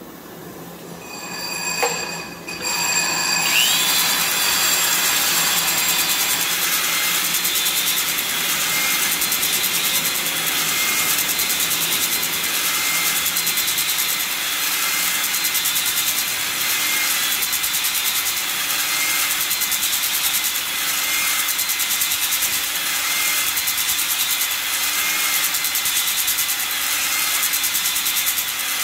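A short aerosol spray of WD-40 into the cylinder. Then, about three and a half seconds in, a 1/2-inch Milwaukee corded drill starts and runs steadily, spinning a cylinder hone whose stones rasp against the oil-soaked cast-iron bore of a John Deere A two-cylinder engine. The sound swells faintly about every two seconds as the hone is stroked in and out to deglaze the cylinder wall.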